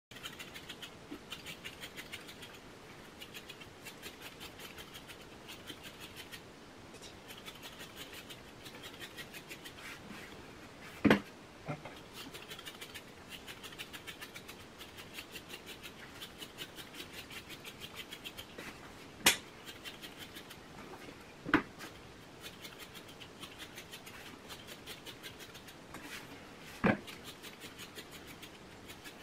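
Stripping knife pulling hair from a West Highland White Terrier's back coat in hand-stripping: quick, even, scratchy strokes, several a second, with four sharp knocks spread through.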